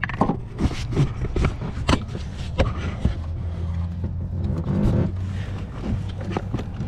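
Long straight pliers clicking and scraping against the oil pressure sensor's plastic connector lock tab, prying it off in a string of irregular taps. A steady low hum runs underneath.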